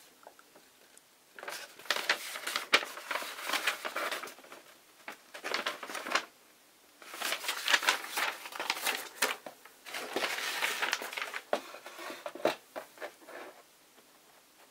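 A paper instruction sheet rustling and crinkling as it is handled, in three long stretches with sharp clicks, dying away near the end.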